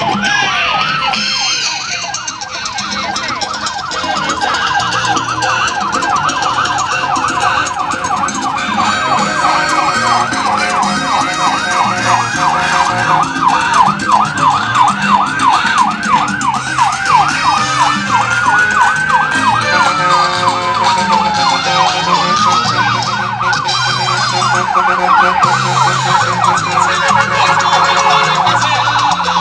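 Emergency-vehicle sirens sounding together in a rapid yelp, with one slow wail that rises and then falls about two-thirds of the way through.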